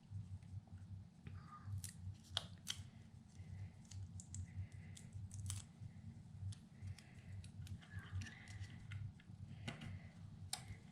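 Scattered small clicks and short rustles of paper die-cut pieces and adhesive being handled on a work surface, over a low steady hum.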